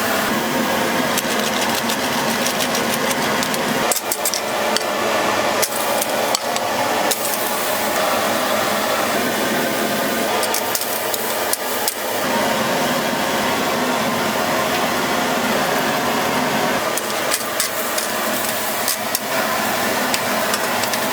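Cooking on a hot griddle: a steady sizzle with repeated clacks and scrapes of metal utensils against the griddle plate, in clusters several times.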